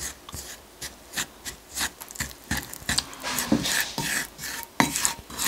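Wooden spoon stirring flour into salad oil in a ceramic bowl, scraping against the bowl in quick repeated strokes as the mixture turns to a paste, the first step of a chiffon cake batter.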